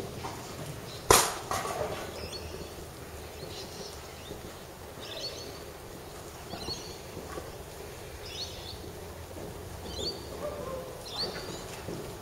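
Birds chirping in short, high calls repeated every second or so. A single sharp knock about a second in is the loudest sound.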